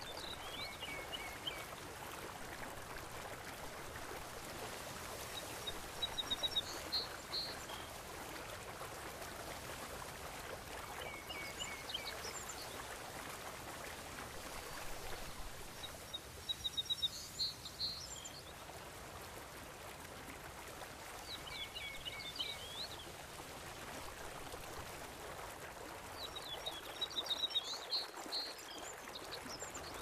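A steady wash of sea water lapping, with short bouts of high bird chirps and trills coming back about every five seconds.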